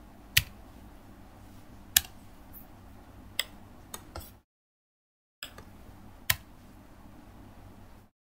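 Scattered single clicks from a laptop keyboard and mouse, about six in all and spaced irregularly, over a faint steady room hum. The sound cuts to dead silence for about a second midway and again near the end.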